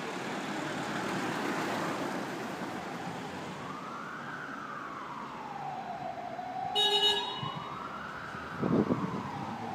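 Emergency vehicle siren wailing, slowly rising and falling about once every four seconds, over steady street traffic noise. A brief high tone sounds about seven seconds in, and a few low thumps come near the end.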